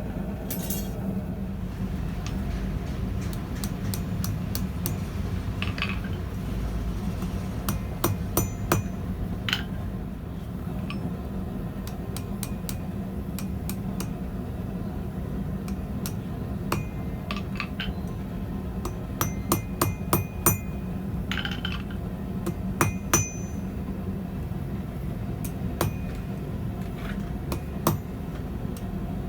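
Hammer striking steel in light, irregular taps that come in small clusters, each with a short metallic ring, over a steady low hum.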